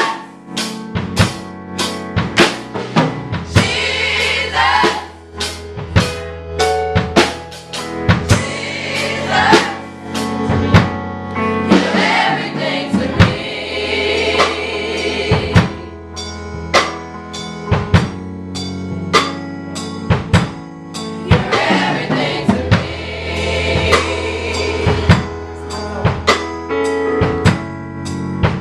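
Youth gospel choir singing together over a steady percussive beat.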